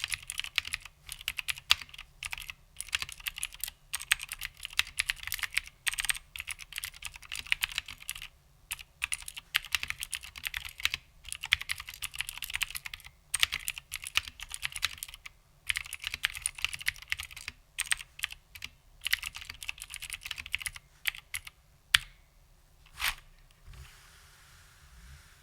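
Typing on an HMC C386SX keyboard with vintage Cherry MX Blue switches and original Cherry doubleshot keycaps: fast runs of clicky keystrokes broken by short pauses. Near the end the typing stops, leaving a couple of single clacks.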